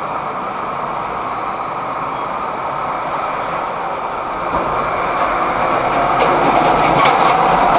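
Steady road traffic noise picked up by a car's dashcam microphone, growing louder from about halfway in as vehicles pass close by.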